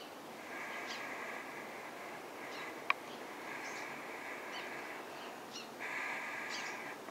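Camera lens autofocus motor whining in three stretches of a second or two each while the focus hunts, heard through the camera's own microphone. A sharp click comes just before three seconds in, and faint short chirps come from distant birds.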